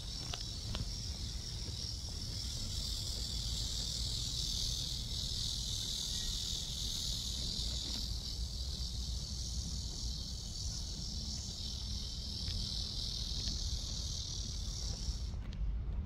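Cicadas calling in one continuous, even, high-pitched buzz that cuts off abruptly near the end.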